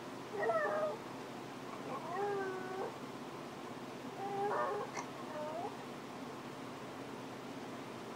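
Small white dog howling, basset-hound-like, in three short calls that waver in pitch, about two seconds apart: separation howling at being left while her owner is away in the office.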